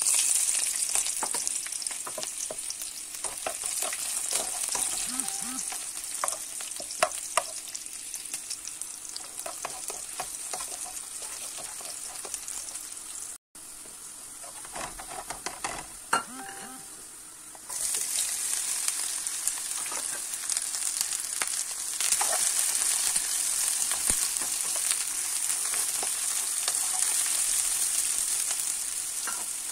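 Sliced onions dropping into hot oil in a frying pan and sizzling, stirred with a spatula that clicks and scrapes against the pan. A little over halfway through the sizzle jumps louder as sliced bitter gourd fries in the same pan.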